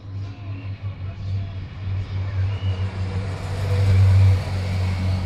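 Police motorcycles approaching along the road, the nearer one riding past close by. Its engine and tyre noise build to a peak about four seconds in, then ease off.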